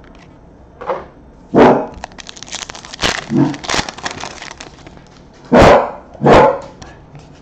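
A dog barks loudly a few times: once about a second and a half in, then twice close together near the end. In between, a foil trading-card pack is torn open and crinkles.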